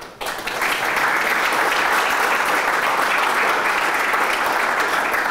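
Audience applauding, building quickly at the start and then holding steady.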